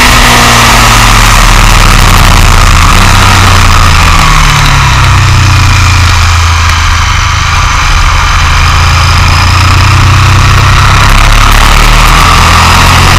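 Motorcycle engine running at speed with loud wind and road rush on the onboard microphone. The engine note sags slightly around the middle and then climbs again.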